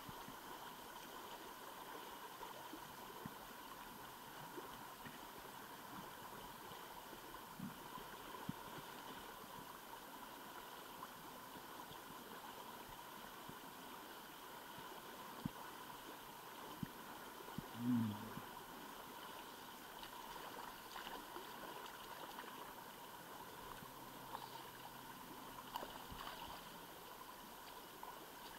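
Faint, steady flow of a shallow river riffle running past the wading angler, with a few light clicks and one short low sound about two-thirds of the way through.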